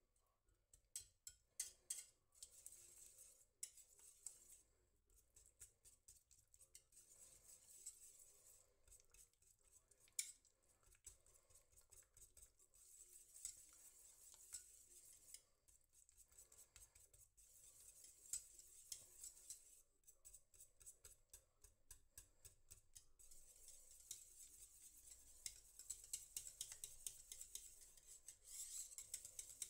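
Wire balloon whisk beating a thick, melting cheese mixture in a stainless steel pot, the wires scraping and clicking against the pot in quick, continuous strokes.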